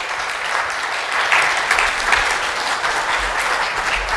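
A congregation applauding: many hands clapping together in a steady spread that swells a little after the first second.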